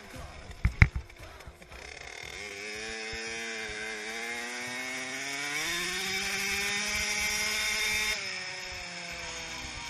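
Small 50cc two-stroke mini motocross bike engine running under throttle, its pitch climbing in steps, holding high for a couple of seconds, then easing off near the end. A few sharp knocks about a second in.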